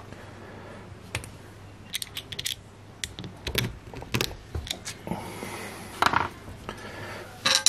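Irregular light clicks, taps and scrapes of a screwdriver and small hardware being handled while new rubber feet are pressed into an amplifier's case, with a louder scrape about six seconds in.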